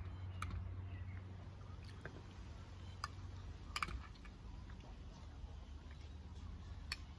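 Light clicks and taps of a fork and fingers on a plate while eating, a handful spread through, the loudest pair about four seconds in, over a low steady hum.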